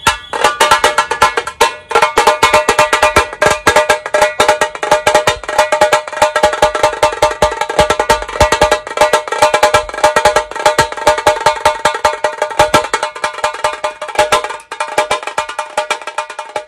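Tasha drum played with sticks in a rapid, unbroken stream of strikes, its tight head ringing with a high metallic tone.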